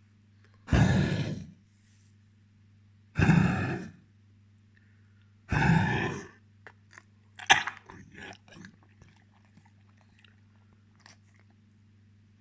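Dog coughing: three harsh coughs about two seconds apart, each under a second long, followed by a sharp click and a few softer mouth sounds.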